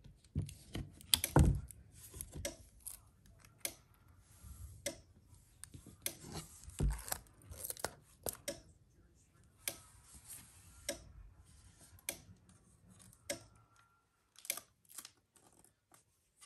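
Sheets of sublimation paper rustling and sliding, with strips of heat-resistant tape being pulled and torn. The sound is a run of irregular clicks, scrapes and crinkles, loudest about a second and a half in and again near seven seconds.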